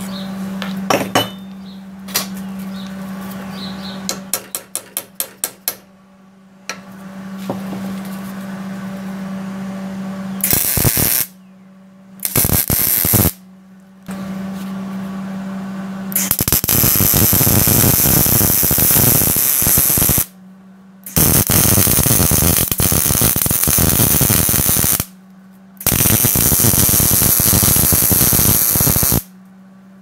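MIG welder arc crackling and hissing in bursts as a steel tubing joint is welded: two short bursts about a third of the way in, then three longer runs of about four seconds each with brief pauses between. Before the welding starts, a steady hum with a few clicks and a quick rattle of ticks.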